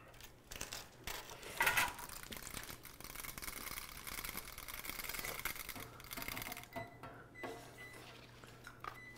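Knife cutting through a rack of barbecued ribs resting on aluminium foil, the foil rustling and crinkling under the blade.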